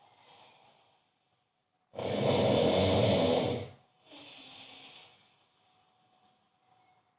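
A man snoring very loudly: one long snore about two seconds in, lasting under two seconds, then a softer breath, then a pause of near silence.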